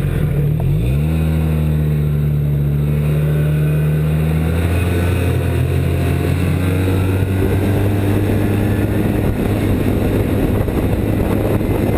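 2007 Arctic Cat Z1 snowmobile's four-stroke triple engine running, rising in pitch about a second in and then holding steady, with a faint high whine over it; the video is about a belt squeal, which the owner cannot explain.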